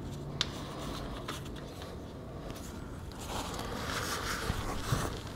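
Quiet handling noises as the oil drain plug of a BMW R1200GS engine is screwed in by hand: a couple of light clicks, then soft rustling.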